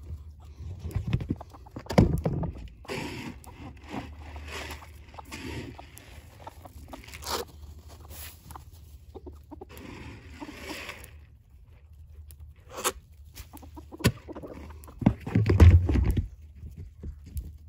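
A flock of chickens clucking and calling around scattered feed. A couple of louder low thumps come about two seconds in and near the end.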